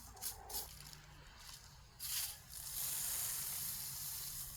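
Sand and small rocks being sifted by hand: a few light pebble clicks, then a hissing rustle of shifting grains starting about two seconds in.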